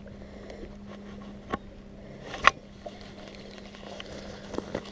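Baitcasting reel being cranked while fighting a fish: faint handling noise of the reel and rod, with sharp knocks about one and a half seconds in and, louder, about two and a half seconds in, over a steady low hum.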